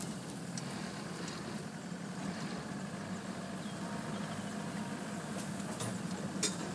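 Open safari vehicle's engine running steadily at low revs as it drives slowly through the bush, with a sharp knock near the end.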